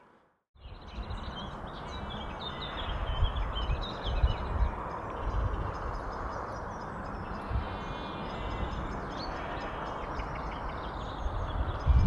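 Outdoor ambience of birds chirping and calling over a steady background hiss and a low, uneven rumble. It starts about half a second in, after a moment of silence.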